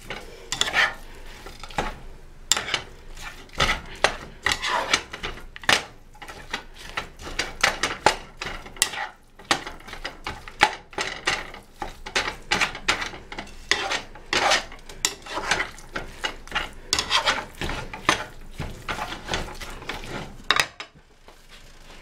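A utensil scraping and stirring browning ground beef and onions around a hot skillet in quick, irregular strokes, with the meat sizzling underneath.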